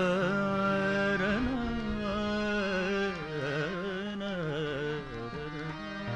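Male voice singing a long, ornamented melodic phrase that glides and wavers in pitch, over sustained harmonium chords. The voice stops a little before the end while the harmonium holds on.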